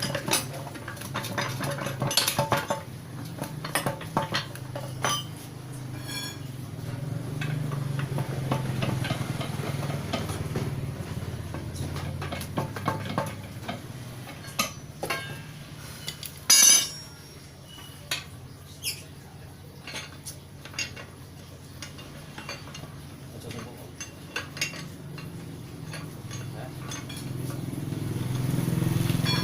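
Hand tools and metal transmission parts clinking and knocking at irregular intervals, with one louder metallic clatter a little past halfway, over a steady low hum.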